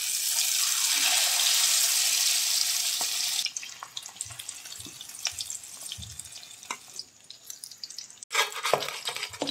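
Wet, egg-coated chicken gizzard and liver (pota kaleji) hitting hot oil in an aluminium kadai, with a loud hiss of sizzling. After about three and a half seconds it dies down to a lighter crackle of frying with scattered small ticks, and near the end the crackling grows louder again.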